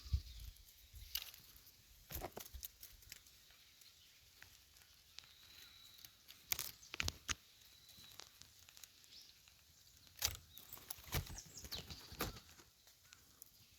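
Faint, scattered rustling and crackling, with a few sharper crackles standing out about six to seven seconds in and again between ten and twelve seconds.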